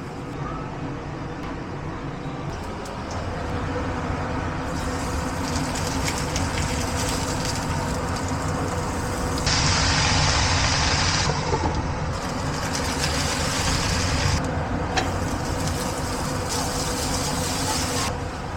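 Steady hum of a kitchen exhaust fan with food sizzling in a pan; the sizzle changes level abruptly several times.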